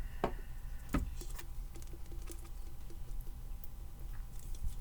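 Light clicks and taps from handling a plastic ornament and an alcohol-ink bottle. Two sharper clicks come near the start and about a second in, then a run of faint small ticks, over a low steady hum.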